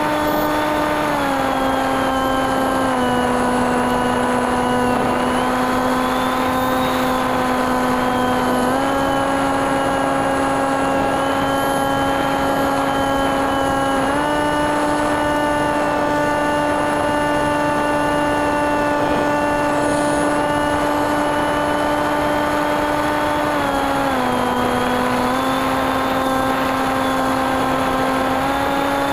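Electric motor and 8x6 propeller of a TekSumo FPV aircraft heard from its onboard camera: a steady buzzing drone whose pitch steps down and back up several times as the throttle is changed, over a hiss of rushing air.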